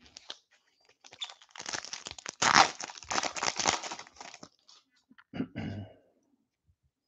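A 2021 Topps Series 2 baseball card pack being torn open by hand, its foil wrapper crinkling and crackling for about three seconds.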